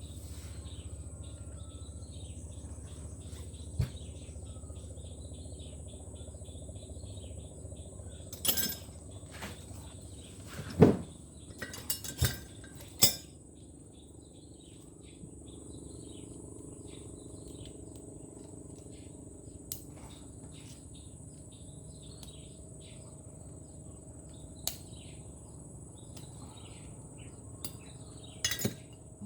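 Metal turbocharger parts being handled during assembly: a few sharp clinks and knocks of small steel pieces, the loudest cluster about halfway through, over a steady background of insects chirping.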